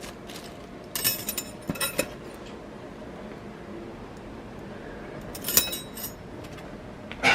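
Metal air fryer rotisserie accessories clinking and clattering as they are handled, in two short bursts of clinks, with a louder knock near the end.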